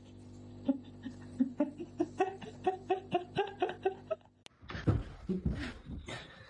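A person laughing in a quick run of short pitched pulses, about four a second, for about three seconds. After a brief gap, low rumbling and knocking noise fills the end.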